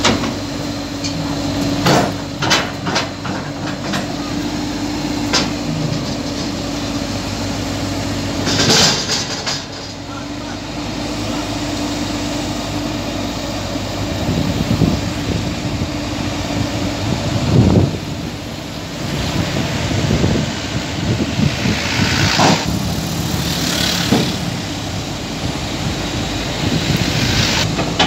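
Heavy diesel machinery idling steadily during the loading of a Komatsu PC200 excavator onto a lowbed truck, with a few sharp metallic knocks and several short hissing bursts.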